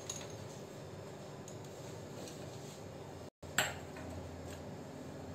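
Quiet room hiss with a couple of faint clicks, one at the start and a sharper one about three and a half seconds in, just after a brief dropout in the sound.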